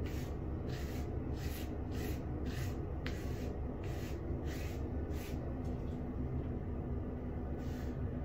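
Fingers rubbing pomade through short hair, a dry swishing stroke about twice a second that thins out in the last couple of seconds. A steady low hum runs underneath.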